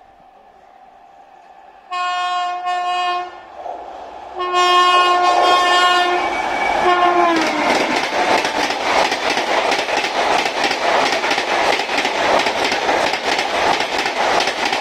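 WAP-7 electric locomotive's horn sounding long blasts as it approaches at about 130 km/h, the last note dropping in pitch as it passes. Then the express's LHB coaches rush by with a loud, rapid clatter of wheels over the rail joints.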